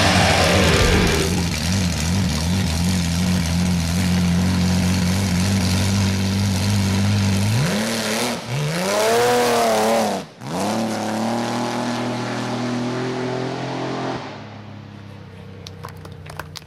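Six-cylinder engine of a vintage roadster drag car running at raised revs on the start line, its pitch wavering at first. About eight seconds in it revs up and down in a couple of sweeps, dips suddenly for a moment, then holds steady again. Near the end it gives way to a quieter background with a few clicks.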